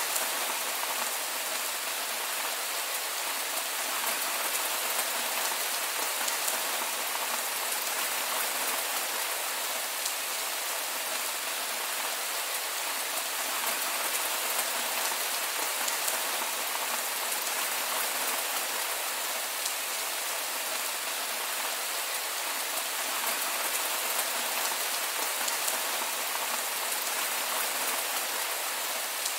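Heavy rain falling steadily: an even, unbroken hiss with no thunder.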